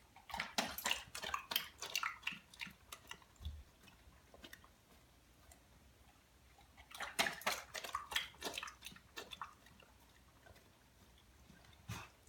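Airedale terrier biting and chomping at the water in a stainless steel bowl instead of lapping it, with wet splashes and jaw clacks in two bouts, one at the start and a second about seven seconds in. A single sharp click comes near the end.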